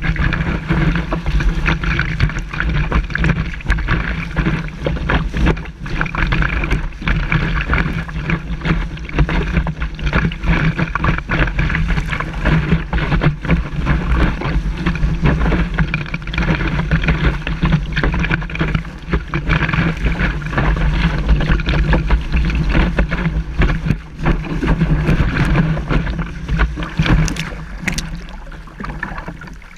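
Loud, steady rush of wind buffeting a close-up action-camera microphone, with water spray and splashes hitting it as a kiteboard rides through the waves. Frequent short splashes run through the rush.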